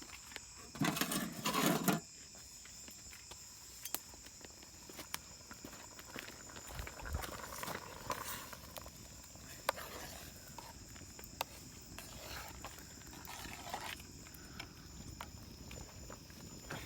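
Steady high-pitched insect drone with scattered light clicks and knocks, and one loud noisy burst lasting about a second near the start.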